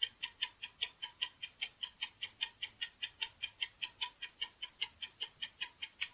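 Countdown-timer sound effect: a clock ticking steadily and evenly, about four ticks a second.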